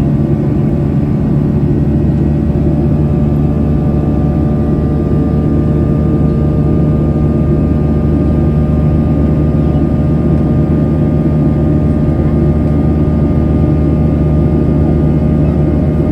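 Boeing 737-800's CFM56-7B turbofan engines running at climb thrust, heard from inside the cabin next to the engine: a steady drone with a low hum and faint steady whining tones above it.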